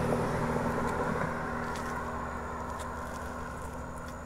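A car going past on the road, its tyre and engine noise fading steadily as it moves away.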